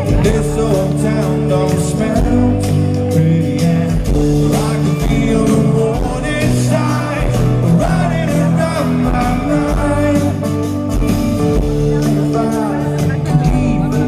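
Live rock band playing: a man singing over strummed acoustic guitar, with drums and bass beneath.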